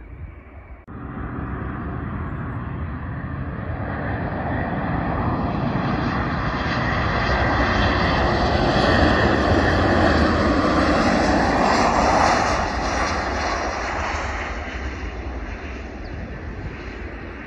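Jet engines of a Ryanair Boeing 737 airliner on final approach, passing low overhead to land: a steady jet roar that builds to its loudest about ten seconds in, then fades as the aircraft passes.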